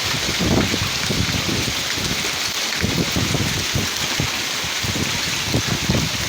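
Heavy rain falling in a steady, even hiss, with irregular low rumbling swells underneath, like gusts of wind on the microphone.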